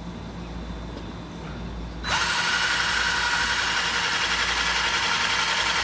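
Electric drill starting about two seconds in, spinning up quickly and then running steadily at speed while drilling holes in a mount.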